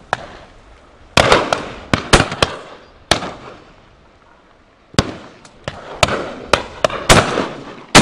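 Shotguns firing at driven birds: a quick run of sharp shots, some loud and close, others fainter and farther down the line, each trailing off in an echo. A pause from about three to five seconds in, then steady shooting again.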